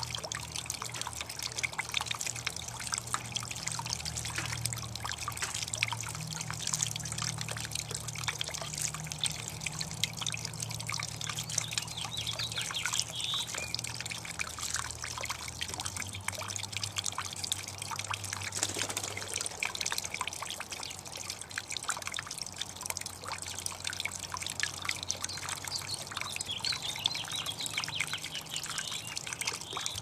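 Water trickling and dripping steadily from a garden fountain into its basin.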